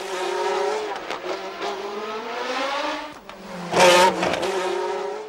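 Formula One racing car engines at speed, pitch rising and falling with the revs. A car passes close by about four seconds in, the loudest moment.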